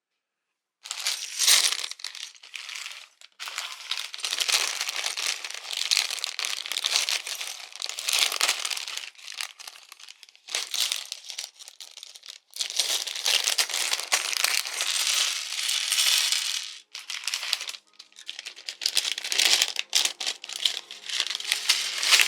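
Thick plastic bags of building bricks crinkling and rustling as they are handled and opened, in irregular bursts with short pauses, starting about a second in.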